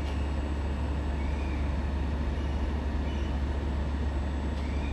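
Pågatåg electric multiple unit (Alstom Coradia Nordic X61) standing at the platform, its onboard equipment giving a steady low hum.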